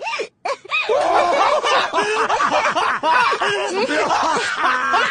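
An anime girl's high-pitched laughter: a short burst, then from about a second in a dense, continuous run of overlapping laughs.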